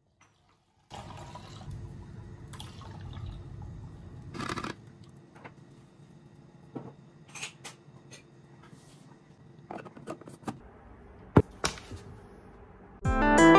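Liquid poured into a clear plastic tumbler onto wheat flour, running steadily for about four seconds before stopping. A few light clicks and knocks follow, one louder about eleven seconds in, and guitar music comes in near the end.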